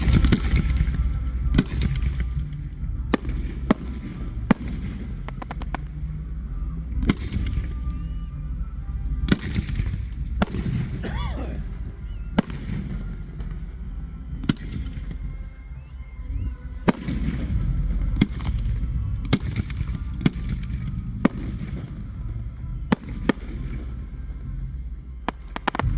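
Aerial fireworks going off: about twenty sharp bangs at uneven gaps, some trailing into crackle, over a steady low rumble.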